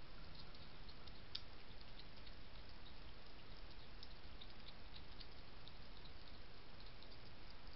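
European hedgehog eating dry kitten kibble from a dish: faint, irregular crunching clicks over the steady hiss of a trail camera's microphone.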